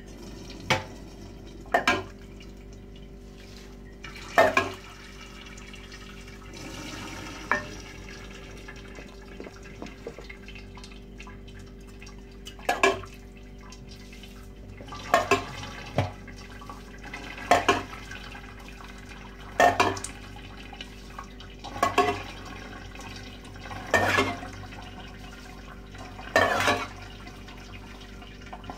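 Hands scooping moist broken-wheat seffa from a bowl and tipping it into the steamer basket of a couscoussier, a short rustling clatter about every two seconds over a steady hum.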